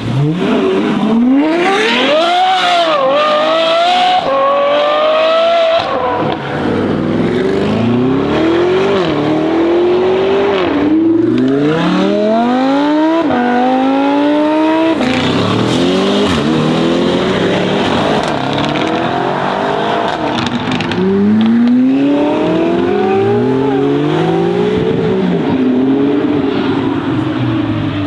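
Mansory Venatus Lamborghini Urus's twin-turbo V8 accelerating hard, loud, its pitch climbing through the gears and dropping back at each upshift. It pulls away in several separate runs.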